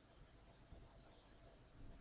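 Near silence: room tone, with a couple of faint ticks.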